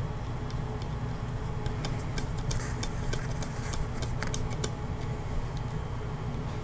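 Light clicks and ticks of small metal parts being handled on a Glock G45 MOS pistol slide: optic mounting plate and its little screws, in a quick cluster over about three seconds, over a steady low hum.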